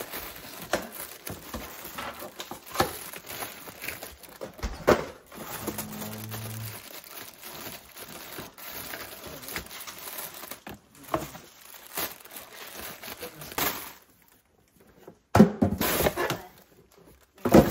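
Plastic food wrappers crinkling and rustling, with small knocks against clear plastic storage drawers as packaged snacks are stacked into them. Near the end, after a brief pause, come louder thuds and rustling as cardboard snack boxes are handled.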